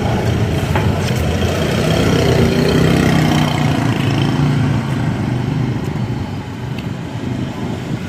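Street traffic: a motor vehicle engine running close by, growing louder about two seconds in and easing off near the end.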